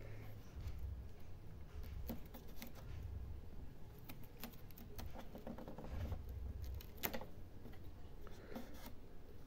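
Hands handling a portable turntable's tonearm and its foam packing sheet: scattered light clicks and taps with soft rustling, and a low rumble of handling.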